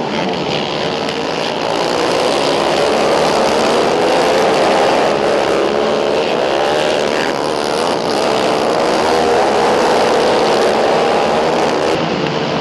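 Several racing quad engines running hard together as the pack goes through a turn. Their pitches overlap and waver up and down as the riders work the throttles, swelling a little louder twice.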